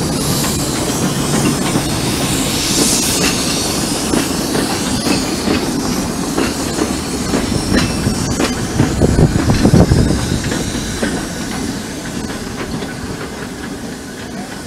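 Two narrow-gauge steam tank locomotives double-heading a passenger train past, with a hiss of steam early on. The coaches and wagons follow, clattering over the rail joints, loudest about nine to ten seconds in. The sound then fades as the train draws away.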